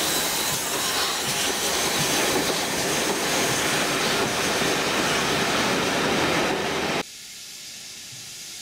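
Loud rush and rattle of railway coaches passing close alongside, heard from the open window of a moving train. About seven seconds in it drops suddenly to a much quieter running sound with a faint steady whine.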